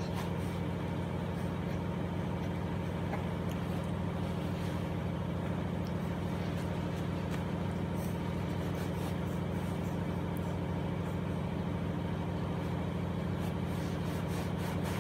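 A steady low mechanical hum at an even level, with a few faint clicks.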